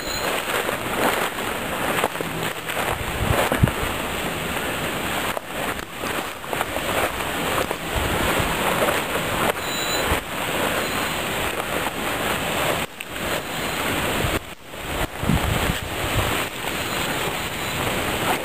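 Continuous crunching and rustling of footsteps on the crushed-rock ballast of a railway track, irregular rather than an even stride, with handling noise from the handheld camera.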